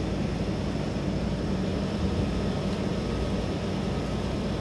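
Steady outdoor rumble with a hiss over it, even throughout, with no distinct events.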